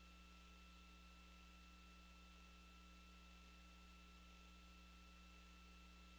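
Near silence: a faint, steady electrical hum and hiss, with no sound from the rocket.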